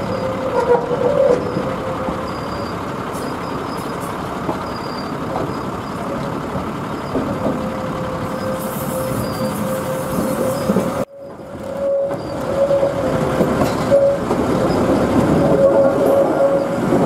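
2000 class rail motor running on curving track, its wheels squealing in one steady tone over the rumble of the wheels and railcar. The sound breaks off suddenly for a moment about eleven seconds in, then the squeal and running noise return louder through a narrow rock cutting.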